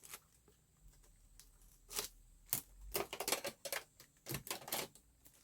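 Hands handling and picking at a notebook's packaging to open it: a series of irregular clicks and taps, bunched in quick clusters in the second half.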